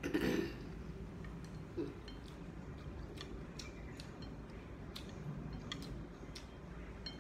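A short slurp of udon noodles at the start, then light, scattered clicks of wooden chopsticks and a metal spoon against a ceramic bowl.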